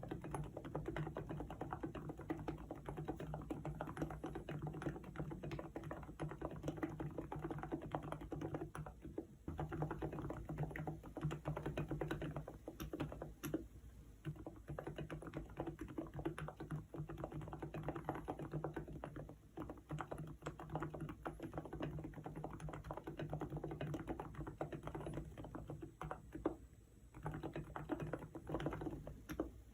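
Fast, continuous typing on a COX Endeavour electro-capacitive keyboard, modded with lubrication and swapped keycaps, with a few brief pauses.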